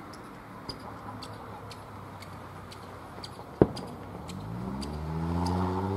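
A single sharp firework bang about three and a half seconds in, then a car engine rising in pitch and growing louder as it drives past. Faint, irregular ticking sounds over a steady background hiss.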